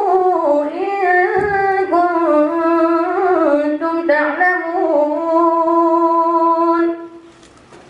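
A boy's solo voice chanting Quran recitation in the Moroccan style, melodic, with long held and ornamented notes, amplified through a microphone. The chant stops about seven seconds in, leaving a pause.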